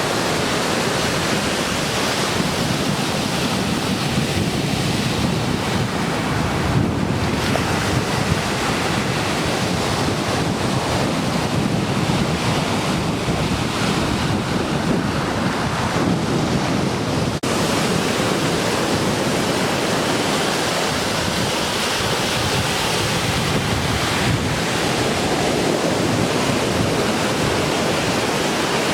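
Ocean surf breaking and washing continuously, with wind buffeting the microphone.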